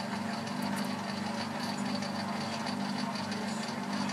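Boxford lathe running steadily under power during screw-cutting of a 1.75 mm metric thread, with a steady hum and a faint high whine from the drive and change-gear train.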